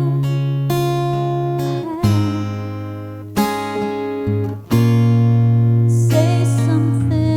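Background music: acoustic guitar chords struck every second or two and left to ring.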